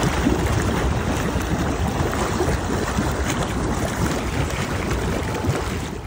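Steady rush of churning water with wind buffeting the microphone, dropping away sharply near the end.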